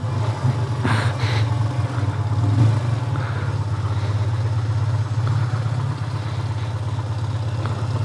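Motorcycle engine running steadily at low revs while the bike rolls slowly at walking pace.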